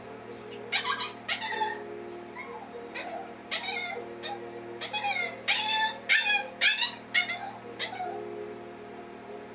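West Highland white terrier puppy whining and crying in a series of high-pitched cries, many falling in pitch, bunched most thickly about five to seven seconds in.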